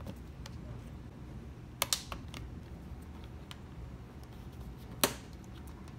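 Plastic push-pin clip fasteners being pressed into a plastic trim cover: a quick double click about two seconds in and one sharp click about five seconds in, with light plastic handling ticks between.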